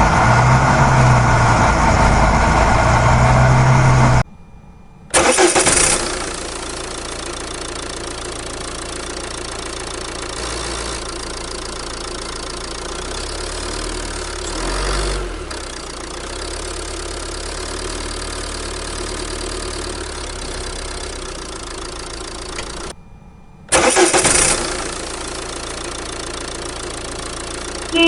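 Vehicle engine sound effects: an engine running, cutting out twice, each time followed by a loud burst like an engine starting and then settling to a steady run.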